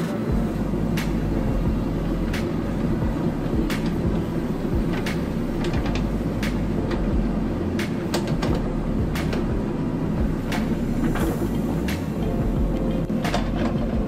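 JCB 3DX backhoe loader's diesel engine running steadily while the backhoe digs, with sharp clanks from the arm and bucket scattered about once a second.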